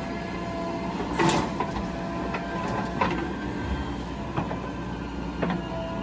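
JCB 3DX backhoe loader's diesel engine running steadily while it works the backhoe arm, with a few sharp clanks from the bucket and arm, the loudest about a second in as a bucketful of soil drops into the tipper's steel bed.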